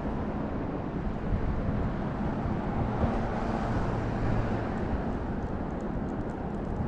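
City street traffic noise: a steady low rumble of cars on the avenue, with one car passing close by around the middle.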